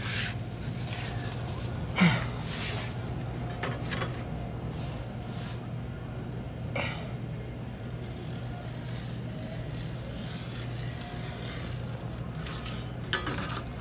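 Utility knife slicing through vinyl wallcovering in short scratchy strokes, with a sharp clack about two seconds in, over a steady low hum.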